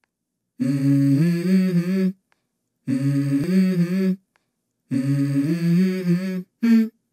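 Hummed vocal intro jingle: a voice hums three short melodic phrases with silent pauses between them, then a brief fourth note near the end.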